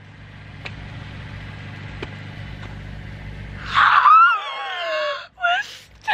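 A vehicle's engine running steadily, its low hum unchanging for about four seconds. Then a woman lets out a loud, drawn-out shriek that wavers and falls in pitch, followed by two short vocal sounds.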